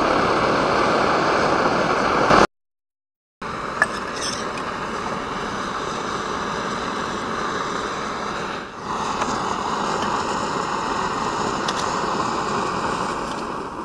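Small brass pressure paraffin stove burning at full flame with a steady rushing sound, fully preheated and running hot under a pot of boiling water. It breaks off for about a second early on, then dies away near the end as the stove is shut down.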